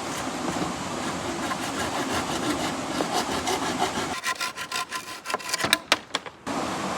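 Wood being sawn by hand, rapid back-and-forth strokes that become sharper and more separate in the second half and stop abruptly near the end, giving way to a steady rushing noise.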